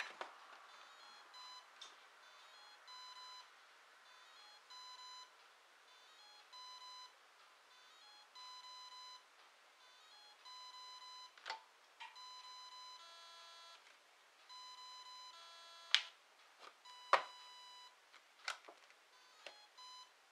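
Eachine SS Series 125A brushless boat ESC sounding its programming beeps through the connected motor as it cycles through its setting menu: a repeating single-pitch beep, each about half a second to a second long, every second or two, with a quick run of stepped tones partway through. Several sharp clicks, the loudest sounds, come in the second half.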